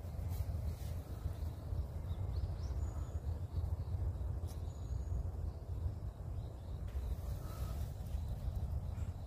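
Outdoor background: a steady low rumble with a few faint, short bird chirps.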